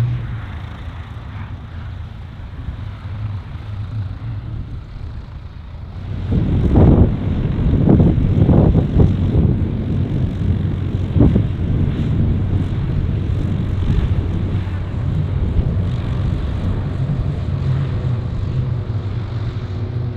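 Light aircraft propeller noise: a piston single rolls on the runway, then a Pipistrel Velis Electro electric two-seater takes off and climbs out, its electric motor and propeller giving a steady tone near the end. Heavy, irregular rumbling gusts of wind on the microphone come in about six seconds in and are the loudest part.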